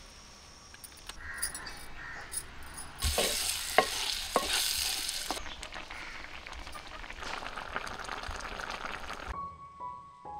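Chopped starfruit sizzling and hissing in a pan over a wood fire, with a few sharp clinks early in the frying. Near the end the sizzle gives way to piano music.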